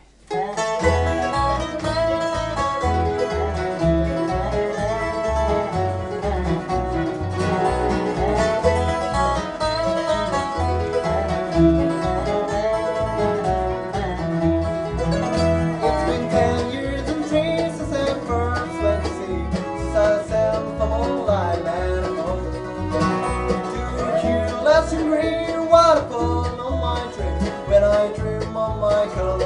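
Acoustic bluegrass band playing an instrumental intro, with steady bass notes on the beat under picked melody lines.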